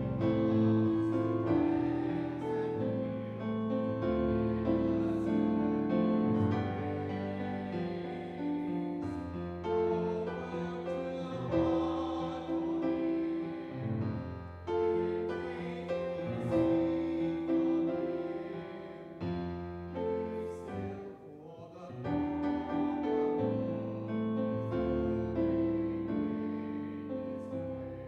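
Kawai piano playing a hymn-style song in chords, with voices singing along. The music dips briefly about three quarters through and fades near the end.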